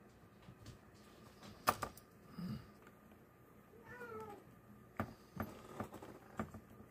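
A cat meows once, a short call that falls in pitch about four seconds in. A few sharp clicks and taps come from parts being handled on the desk, the loudest a little under two seconds in.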